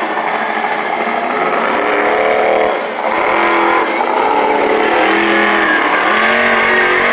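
Monster truck's supercharged engine revving in repeated surges, its pitch climbing and dropping again and again as the truck drives across the dirt arena.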